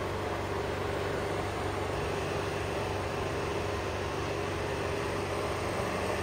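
A steady engine-like hum running evenly throughout, with no distinct events standing out.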